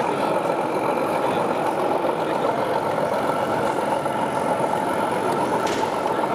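Steady diesel engine sound from an O gauge model diesel locomotive's onboard sound unit as it hauls a train of wagons at low speed.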